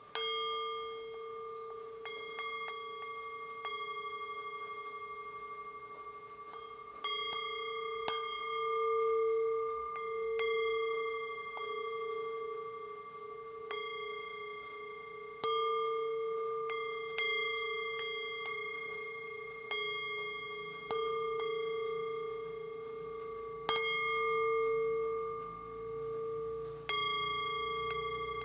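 Background music of struck, bell-like metal tones: a deep ringing tone with higher overtones above it, struck again every second or two and left to ring, its loudness slowly swelling and fading.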